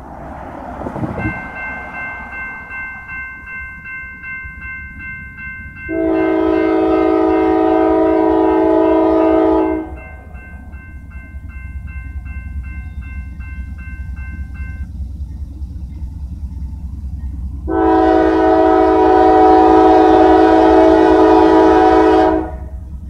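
Grade-crossing signal bell ringing in a rapid pulse as the gates come down, stopping about two-thirds of the way through. Over it, the air horn of an approaching Norfolk Southern GE C40-9W locomotive sounds two long blasts of about four seconds each.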